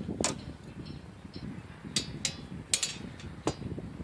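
Sharp clicks and taps of metal rulers and a metal square being set down and shifted on a plywood board, about six in all, with soft handling rustle between them.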